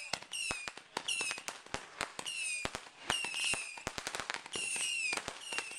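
Fireworks going off: a rapid, irregular string of sharp cracks, mixed with short high whistles that dip slightly in pitch, coming every half second to a second.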